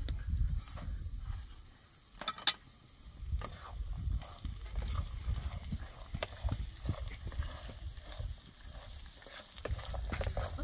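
Food frying in a pan over a wood fire, with a wooden spoon stirring through it and light scraping and ticks; one sharp click about two and a half seconds in is the loudest sound.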